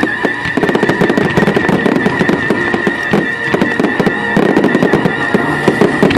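Fireworks display: many rapid crackles and bangs from bursting shells, over music holding one steady high note.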